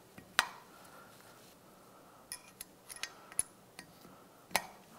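Light metallic clicks as steel valves are handled and pushed into the valve guides of a Yamaha YXZ1000R's aluminium cylinder head. There is one sharp click about half a second in, a scatter of small clinks in the middle and another click near the end.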